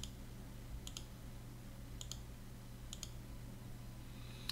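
Computer mouse clicking, about four crisp single clicks roughly a second apart, as points are placed with a drawing program's pen tool, over a faint steady low hum.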